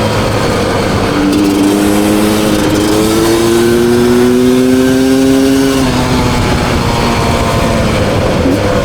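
2020 Beta 300 RR two-stroke dirt bike engine under load. The revs jump up about a second in, climb steadily for several seconds as the bike accelerates, then drop when the throttle closes almost six seconds in.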